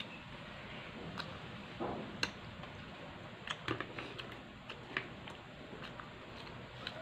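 Balut eggshell being cracked and picked off by fingers: a scatter of small sharp clicks and crackles, the loudest about two seconds in and again near five seconds.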